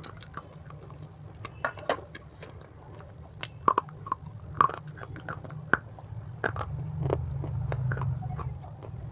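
Close-miked crunchy biting and chewing of chips, with a few sharp crunches about halfway through, over a low steady hum.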